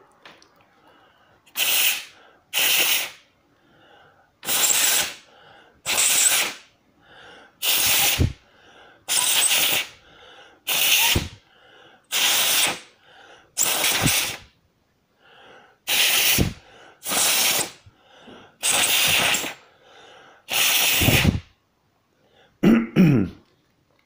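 A person blowing hard by mouth into the opened DualShock 4 controller's analog stick potentiometers: about thirteen short, forceful puffs of breath, often in pairs. The puffs are meant to clear dirt from the potentiometers' resistive track, the dirt that makes the stick cut out and move by itself.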